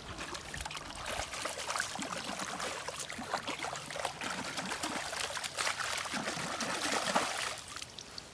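Water pouring and splashing over a sand-covered pistol as it is rinsed off. It starts abruptly and stops shortly before the end.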